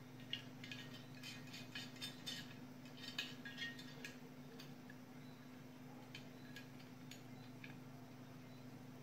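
Small metal clicks and clinks as a soldering iron stand's coil-spring holder and nut are handled and screwed onto its base, most frequent in the first four seconds and sparser after, over a low steady hum.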